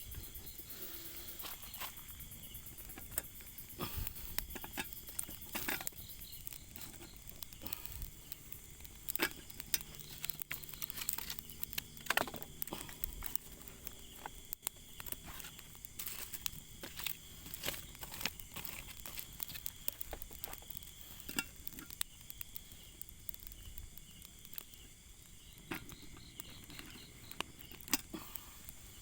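Insects chirring steadily in a high, even drone, with scattered small crackles and rustling clicks throughout.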